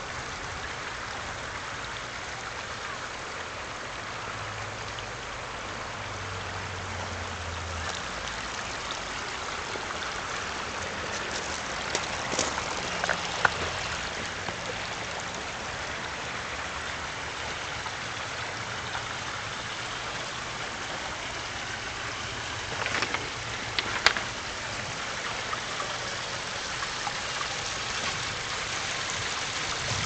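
Water rushing and trickling steadily down a rock-lined garden stream and over a small stone waterfall into a backyard pond. A few brief sharp clicks come about 12 to 13 seconds in and again about 23 to 24 seconds in.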